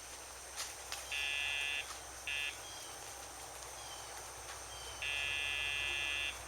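Dogtra e-collar's pager sound box buzzing in three bursts: a short one about a second in, a very brief one soon after, and a longer one of over a second near the end. Each buzz marks the pager vibration being applied while the leash is tight, teaching the dog not to pull.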